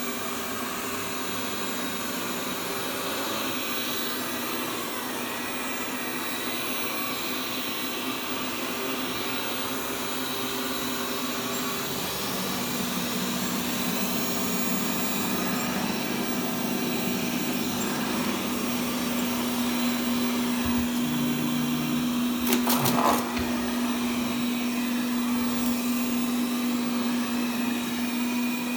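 Xiaomi Mi Robot Vacuum Cleaner running on carpet: a steady whir of its suction fan and brushes with a constant hum, which steps slightly in pitch about twelve seconds in. A short burst of sharp clicks comes about three-quarters of the way through.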